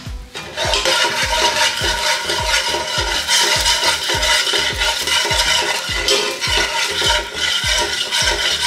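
Background music with a steady, evenly repeating drum beat, which gets louder about half a second in.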